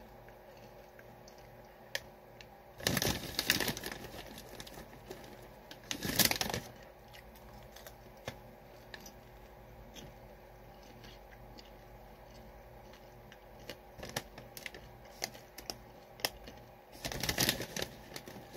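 A plastic popcorn snack bag crinkling in three bursts, about three seconds in, about six seconds in and near the end, as a hand reaches into it. Faint scattered clicks come between the bursts.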